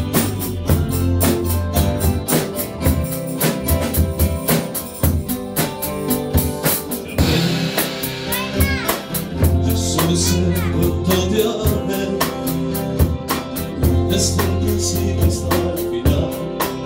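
Live band playing: a drum kit keeps a steady beat under deep sustained bass notes, with a singing voice.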